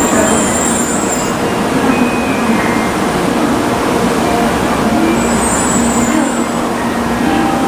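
A 700 series Shinkansen train standing stopped, its onboard equipment running with a steady loud whir and hum. A high hiss of air comes in at the start and again about five and a half seconds in.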